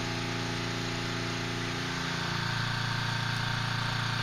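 An engine running steadily, a little louder from about two seconds in.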